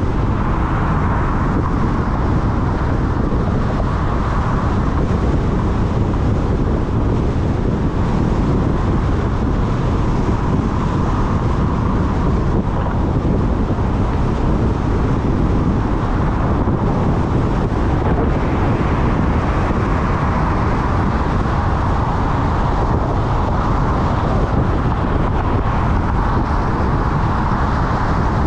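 A car driving at steady speed: constant road and tyre noise with wind rushing past the microphone.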